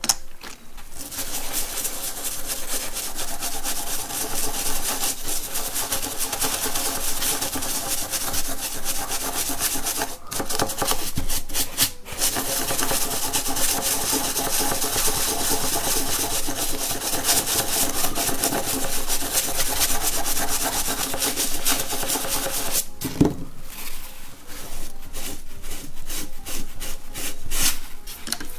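Toothbrush bristles scrubbing an old coin wet with alcohol: a steady, rapid scratchy brushing, broken twice by short pauses. About three-quarters of the way through it gives way to quieter, patchier rubbing with a few light clicks.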